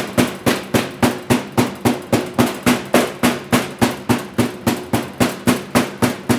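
A metal meat mallet pounding a plastic-wrapped veal cutlet on a plastic cutting board, a steady run of about three blows a second, flattening the meat for saltimbocca.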